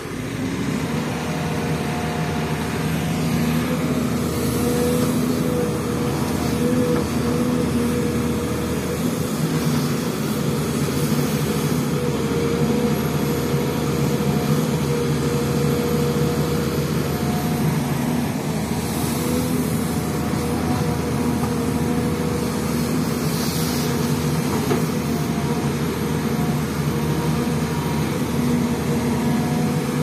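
Diesel engine of an SDLG E6210F crawler excavator running steadily under load as it digs and loads soil into a dump truck. The engine drone stays even throughout, with a few brief swells of hiss.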